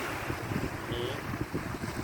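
Wind buffeting the microphone in irregular gusts over a steady rushing noise, with a brief faint high tone about halfway through.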